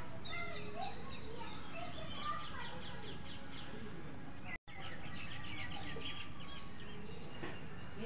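Several small birds chirping and calling, quick short chirps overlapping one another. The sound cuts out for a moment a little past halfway.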